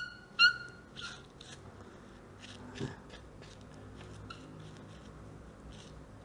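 Wet wipe rubbing over a table tennis racket's cork-filled handle and blade in brisk strokes, about two a second. Two short, high squeaks come near the start and are the loudest sounds.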